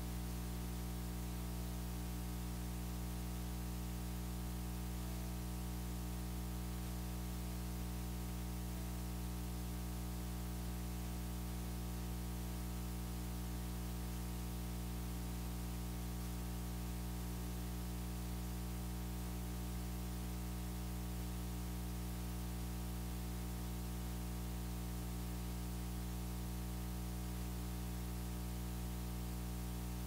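A steady electrical hum made of several low tones, unchanging throughout, over a faint hiss, with faint handpan notes beneath it.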